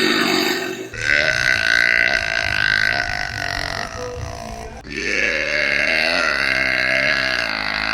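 A woman burping loudly: one burp ends about a second in, then two long drawn-out burps follow, each lasting about four seconds.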